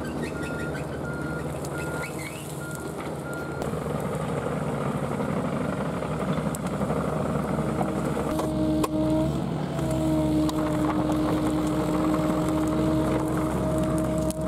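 Mini excavator diesel engine running under load. A high-pitched beeping alarm repeats about twice a second for the first few seconds. From about halfway through, a steady hydraulic whine joins in, dipping once briefly.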